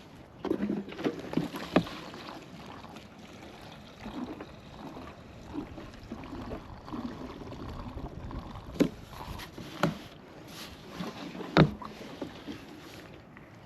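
Scattered clicks, taps and knocks of hand tools and small parts being handled, with a few sharper knocks standing out, as a lawn mower carburetor is worked on.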